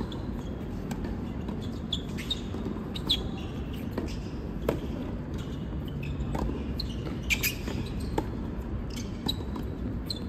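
Scattered knocks and short, high squeaks at an indoor sports competition, over a steady low rumble of the hall.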